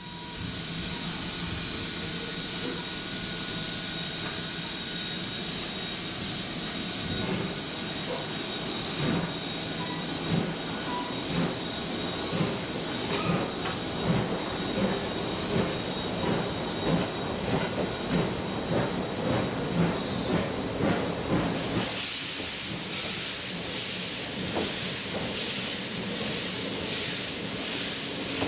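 Steam locomotive running past, hissing steam steadily, with a regular rhythmic beat that builds from about eight seconds in. Near the end the low rumble falls away and the hiss turns brighter as the train moves on.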